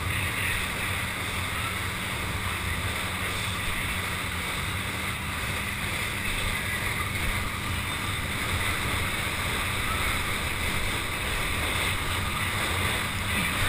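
Water ski skimming fast across the water behind a tow boat: a steady rush of spray and wind buffeting the microphone, with a low steady drone underneath.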